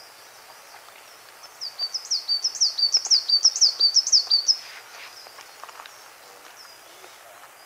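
Small songbird singing a quick run of repeated high two-note phrases, each a sweeping note followed by a short steady one, starting about a second and a half in and lasting about three seconds.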